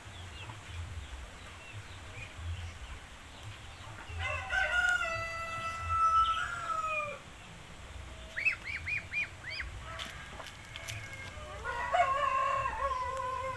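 A rooster crows twice, each crow lasting about three seconds. Between the crows there is a quick run of about five short clucking notes.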